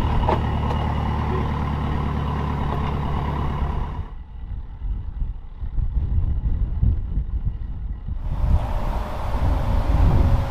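A heavy vehicle's diesel engine running steadily, with a single clank just after the start. About four seconds in the sound cuts to a dull, gusty low rumble of wind on the microphone, which grows fuller and louder near the end.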